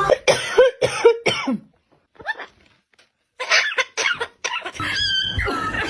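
A run of short coughs in quick succession, a pause of about a second and a half, then a few more coughs.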